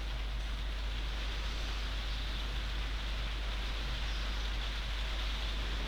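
Steady background hiss with a constant low hum; no taps, knocks or tool sounds stand out.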